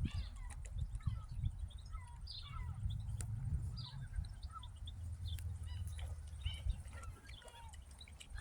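Birds calling in many short squawks and chirps, one after another, over a low uneven rumble.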